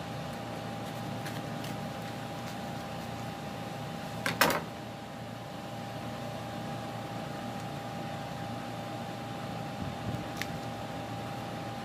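Kitchen knife knocking sharply on a wooden chopping board, a quick double knock about four seconds in, while a green bell pepper is cut. A few small clicks near the end as the seeds are picked out by hand, over a steady hum.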